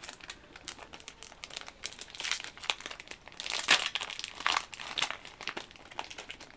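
Foil booster pack wrapper crinkling as it is torn open and handled: a run of irregular crackles, loudest a little past the middle.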